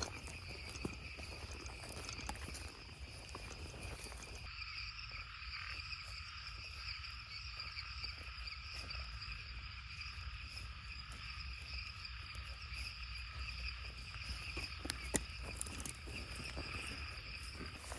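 Steady nighttime chorus of crickets and other insects trilling together at several high pitches, over a low rumble.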